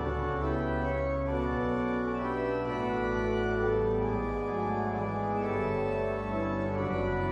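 Pipe organ playing sustained chords that change every second or so over held deep bass notes.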